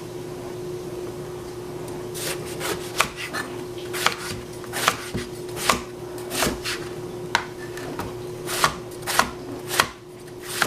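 Knife chopping eggplant on a chopping board: about a dozen sharp, irregularly spaced knocks, starting about two seconds in.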